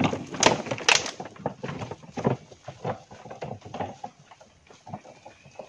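Laden wooden hand cart clattering and knocking as it is pushed over a bamboo-slat footbridge. The knocks are loudest in the first second and fade as the cart rolls away.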